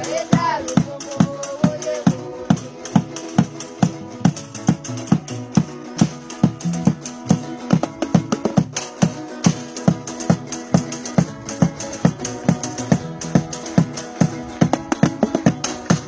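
Lively music from handmade wooden guitars being strummed over a steady rattling beat of about three strokes a second. A voice sings briefly near the start.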